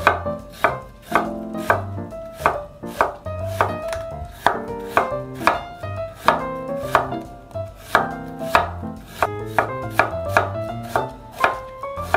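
Kitchen knife cutting through crisp Korean pear flesh and knocking on a wooden cutting board, in an even run of cuts at about two a second.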